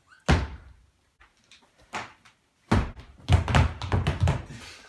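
Feet stomping on a wooden floor: one heavy stomp, a lighter one, then a dense, quick run of stomps from about three seconds in.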